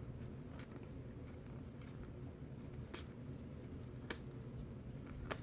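Baseball cards being handled and flipped through by hand: faint, irregular ticks and snaps of card against card, roughly one every second, over a steady low hum.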